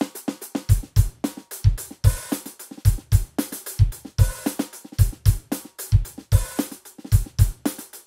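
Sampled acoustic drum kit from the DS Drum RCS Essentials library, on its "Flap" preset, playing a steady groove of kick drum, snare and hi-hat. The kick often lands in quick pairs.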